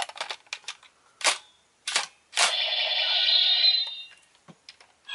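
Plastic clicks of a Power Rangers Megaforce Deluxe Ultra Dragon Sword toy being handled and its buttons pressed, then about a second and a half of the toy's electronic sound effect.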